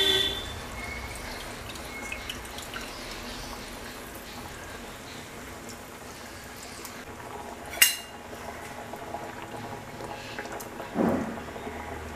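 Fish curry simmering in a clay pot, with faint steady bubbling and small pops. A metallic clink rings at the start, a sharp click comes about eight seconds in, and a steel ladle gives a brief stir near the end.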